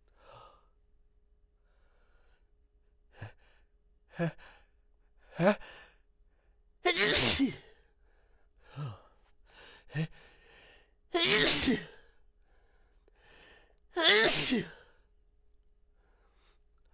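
A man's sneezing fit brought on by Chhinkni sneezing powder: a few sharp, rising in-breaths build up, then three loud sneezes come a few seconds apart, with short breaths between them.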